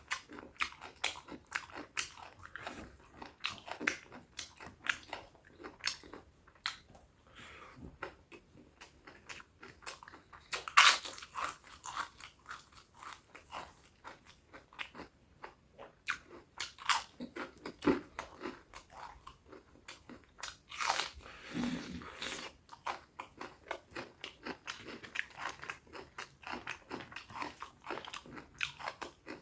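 A person chewing spicy buffalo meat and fat close to the microphone: a steady run of wet mouth clicks and bites, with a few louder crunches.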